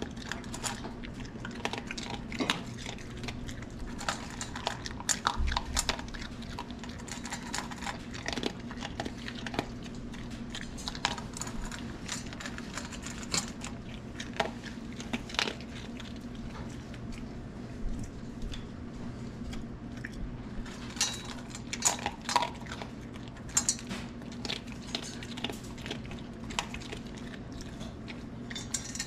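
A small dog eating dry food from a stainless steel bowl: irregular crunching and chewing, with frequent clinks and clatters of food and muzzle against the metal bowl.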